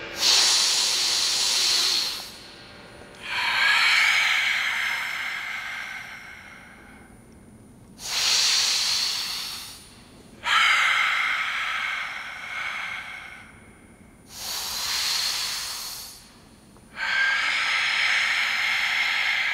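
Forceful karate breathing: about six loud hissing breaths, each one to three seconds long, with short pauses between them.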